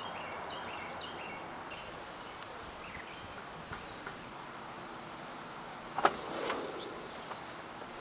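Outdoor background with small birds chirping for the first few seconds, then two sharp knocks about half a second apart, about six seconds in.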